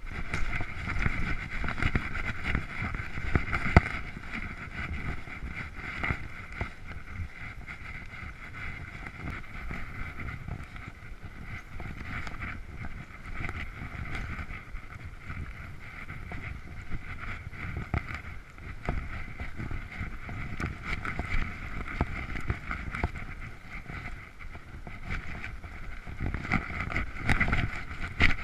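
Mountain bike riding over a dirt singletrack: the bike rumbles and rattles with frequent small knocks from the rough ground, and wind buffets the microphone. A steady high buzz runs beneath it.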